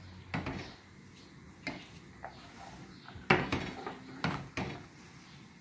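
Wooden spoon stirring rice in liquid in a stainless steel pot, knocking against the pot's side several times with irregular spacing; the loudest knock comes about three seconds in.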